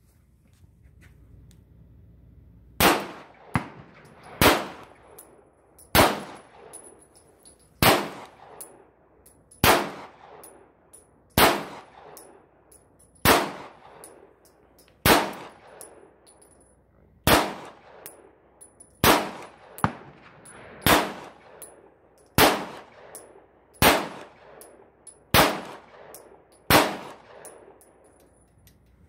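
Beretta pistol fired fifteen times in slow, evenly paced single shots, about one every one and a half to two seconds, each crack followed by a short echo. Fainter sharp cracks fall between some of the shots.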